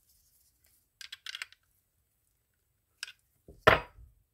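A few light metal clicks of a wrench working the rotor nut on a Fin-Nor Ahab 16 spinning reel, a small cluster about a second in, then a single louder knock near the end.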